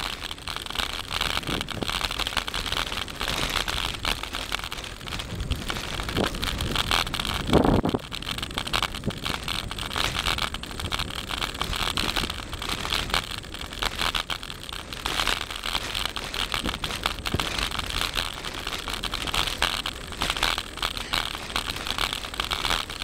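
Wind on the microphone and road noise from a bicycle rolling over rough, cracked asphalt: a steady rushing hiss with a constant fine crackle. A single louder low thump stands out about seven and a half seconds in.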